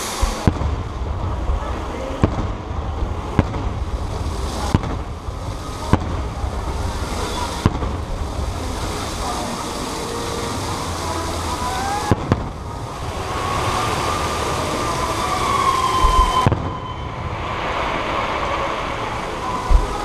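Aerial fireworks shells bursting in the night sky, about nine sharp bangs at uneven intervals over a steady rumble.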